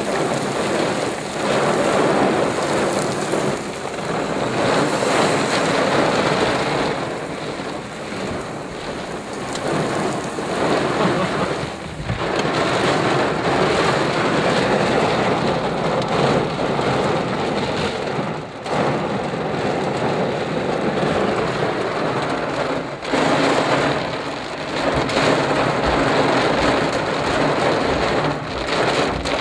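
Heavy storm rain beating on a car's roof and windows, heard from inside the car: a dense, steady rush with a few brief dips.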